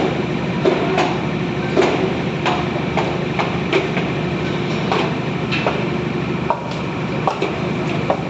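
Repeated sharp metal knocks, each with a short ring, at an irregular pace of about one or two a second, over a steady machine hum, typical of steel reinforcing bars being handled or struck.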